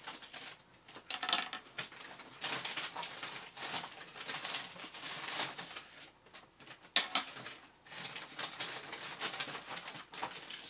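Rustling and irregular light clicking and clattering as 3D-printed plastic robot leg parts are gathered from a plastic bag and set down on a wooden desk.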